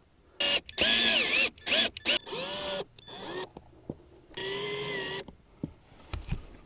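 Power drill driving screws in several short trigger pulls, the motor whine speeding up and slowing with each run. A few small clicks and a low thump follow near the end.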